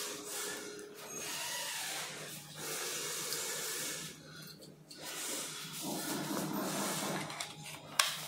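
Rustling and rubbing of plastic scooter parts being handled, ending with a sharp click near the end.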